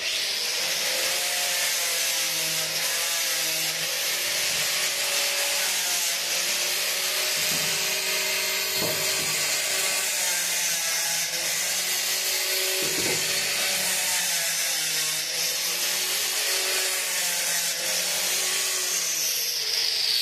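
Handheld angle grinder with a sanding disc running against a wooden window frame, its motor pitch wavering as it is pressed into the wood and eased off. Near the end its whine falls in pitch.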